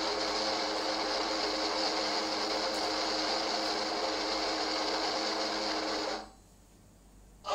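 A steady mechanical whirring hum with a high hiss, which cuts off about six seconds in and drops to a faint hush.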